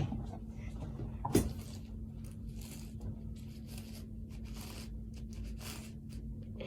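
Plastic layers of a MoYu 11x11 puzzle cube being turned by hand: one sharp click about a second and a half in, then a run of short, soft scraping turns about every half second.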